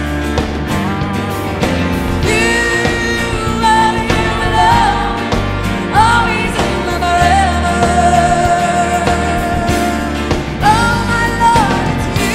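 Contemporary worship song performed live: a woman sings long held notes over full band accompaniment.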